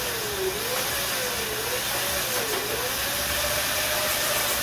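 Razor MX350 electric dirt bike's electric motor and chain drive running under throttle: a whine with a hiss over it, the whine's pitch dipping and rising a few times and then holding steady.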